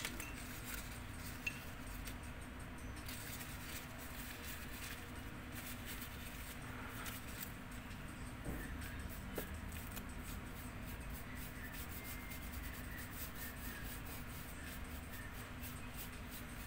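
Flat paintbrush dragging poster paint across paper: faint, repeated scratchy strokes that come more quickly in the second half, over a steady low hum.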